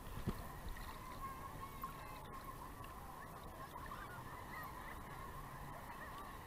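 Faint sea water lapping and bubbling around a small action camera held at the waterline in gentle surf, a steady wash with many short wavering chirps.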